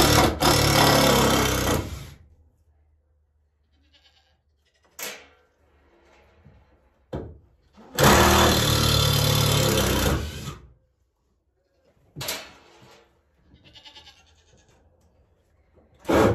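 Cordless drill running in two spells of about two seconds each, at the start and about eight seconds in, backing screws out of a wooden wall board. Short goat bleats come in between.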